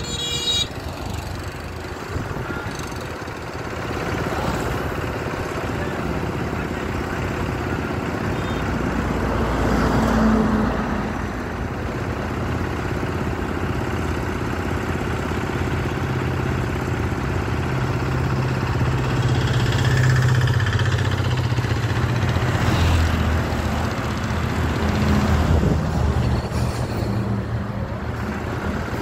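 Heavy truck's diesel engine running steadily, its low note growing stronger from about the middle of the stretch for several seconds.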